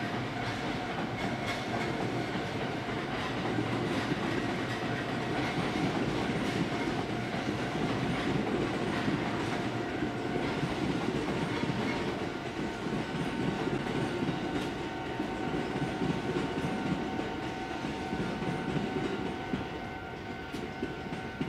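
Hokuriku Shinkansen trains moving through the station: the rumble of wheels on rail as one train pulls away and another comes in on the next track. A steady whine, made of two held tones, grows stronger in the second half as the incoming train gets closer.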